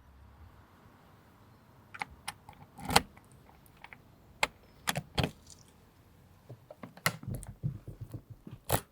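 Irregular small clicks and clinks of hard objects, scattered unevenly, the sharpest about three seconds in and another strong one near the end, over a faint low hum.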